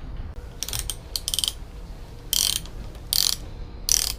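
Ratchet wrench clicking in five short strokes, about one a second.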